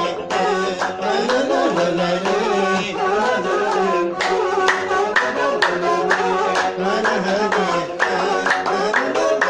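Moroccan Amazigh rways-style music: a man sings over a plucked loutar lute and a bowed string instrument, with a group of men clapping in rhythm.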